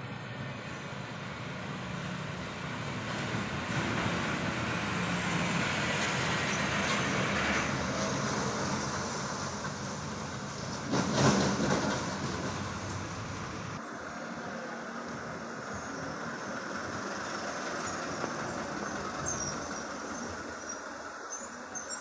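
Heavy loaded truck going downhill on a wet road: engine running low under the steady hiss of tyres on water and rain, with a short loud burst about halfway through. The low engine sound drops away a few seconds later, leaving the hiss of the wet road.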